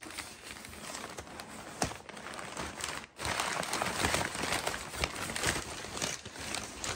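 Crumpled brown kraft packing paper crinkling and rustling as it is grabbed and pulled out of a cardboard box by hand. There is a brief pause about three seconds in, and then it is louder.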